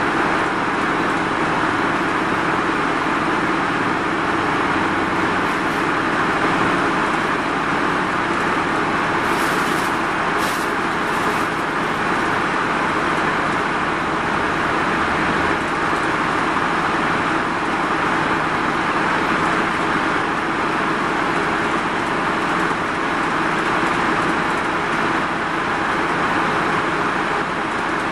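Mitsubishi Fuso Rosa minibus on the move, heard from inside the cabin: steady diesel engine and road noise. Three short high-pitched bursts come about ten seconds in.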